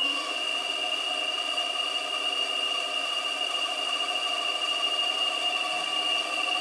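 Hydraulic pump of a 1:8 scale RC Caterpillar 390D model excavator running with a steady high whine as the boom and stone-filled bucket move.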